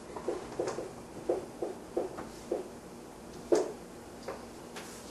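Marker pen squeaking on a whiteboard in short strokes as words are written, about two strokes a second, with one sharper stroke about three and a half seconds in and fewer after it.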